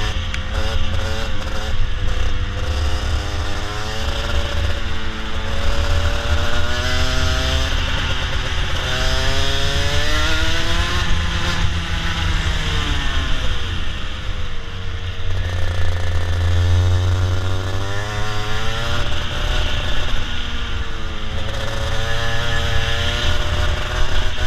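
Racing go-kart's two-stroke engine, heard on board, revving up on the straights and falling away as the driver lifts for the corners, the pitch climbing and dropping several times over.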